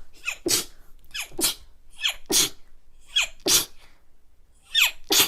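A person's sneezing fit: five sneezes in quick succession, about one a second. Each is a short high-pitched intake that slides down, then a sharp burst.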